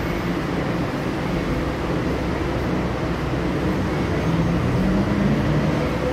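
Steady low rumble and hum of an elevated Skytrain station concourse, with a faint machine hum that grows slightly stronger after about four seconds.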